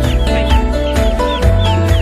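Background music with a steady beat, and over it chicks peeping, with short falling cheeps several times a second.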